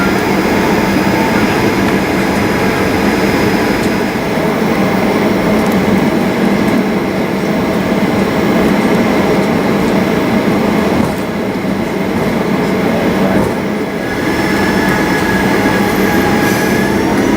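Boeing 737 engine and cabin noise heard from inside the cabin: a steady loud rumble and hiss. Near the end an engine whine begins to rise in pitch as thrust builds.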